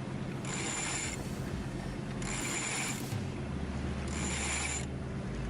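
Sailboat winch being cranked with a handle: a ratcheting whir in three even strokes, each under a second long and about two seconds apart.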